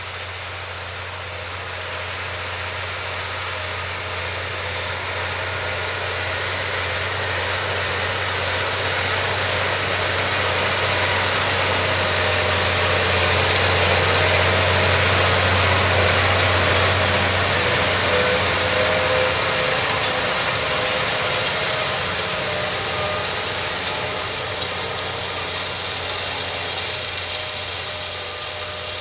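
Tractor pulling a 26-foot Landoll VT 7431 vertical tillage tool at about 8.5 mph and 3 inches deep. The engine runs under load while the disc gangs and rollers grind through the soil. It grows louder as the rig passes, is loudest about halfway through, then fades as it moves away.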